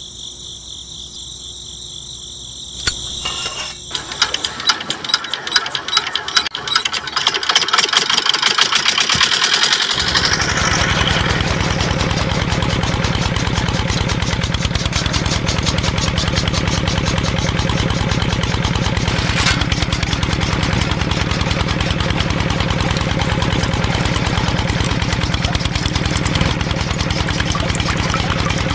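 Miniature diesel engine being cranked: irregular chugs and knocks for several seconds, then about ten seconds in it catches and runs at a steady, fast chug.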